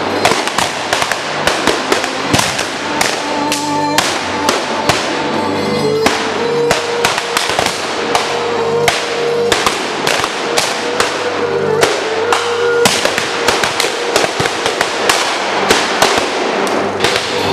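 Rapid, irregular gunfire from reenactors' rifles firing blanks, a crackle of overlapping shots, at times several a second, over sustained music.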